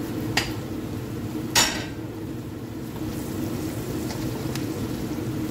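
A metal utensil knocking against a cooking pot twice, the second knock the louder with a brief ring, over a steady low hum.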